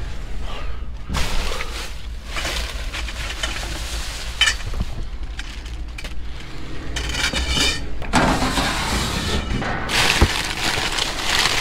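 Rummaging through trash in a dumpster: bags rustling and items knocking and clattering in irregular spells, over a steady low hum.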